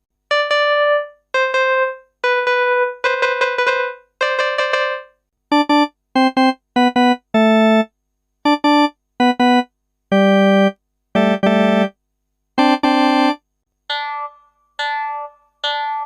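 A series of single synthesized keyboard notes separated by short silences: first several slowly fading notes, then a run of shorter, steady, buzzier notes at lower pitches, and chime-like fading notes near the end.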